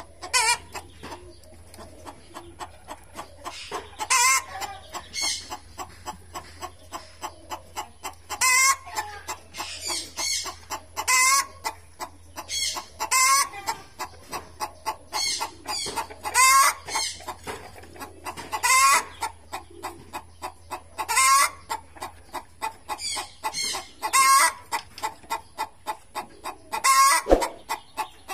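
Repeated animal calls: a steady run of short clucking notes, about three a second, broken every two seconds or so by a longer, louder call that bends in pitch.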